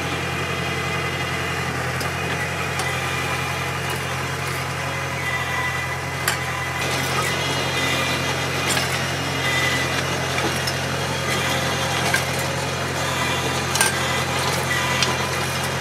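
Tractor engine running steadily as it pulls a hydraulic under-row cultivator with a motorised disc gang through vineyard soil, with a few sharp clicks or knocks over the top.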